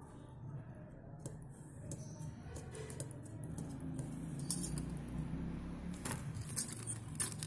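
Small metal parts of a machine head assembly clicking and clinking as they are handled by hand. The clicks come thickest in the last few seconds, over a low steady hum.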